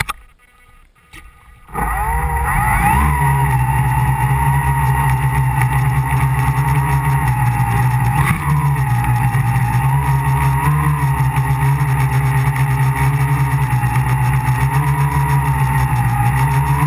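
Tricopter's three brushless electric motors and propellers, heard close from its onboard camera. They spin up from rest about two seconds in, rising in pitch, then settle into a steady loud buzzing hum whose pitch wavers a little with the throttle.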